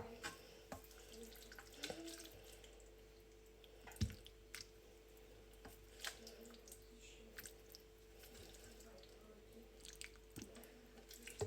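Faint, scattered wet clicks and small taps, with one soft knock about four seconds in, from fufu being handled and eaten with soup. A faint steady hum runs underneath.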